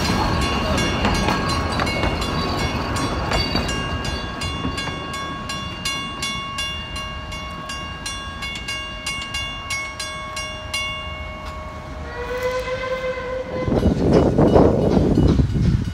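Wooden carriages of a narrow-gauge steam train rolling past on a curve, the wheels squealing in several steady high tones over a quick, regular clicking from the rails. About twelve seconds in, a steam whistle sounds once for a second or so, then a loud rushing noise takes over near the end.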